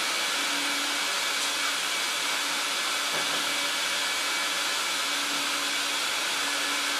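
A motor-driven air machine running with a steady rushing hiss.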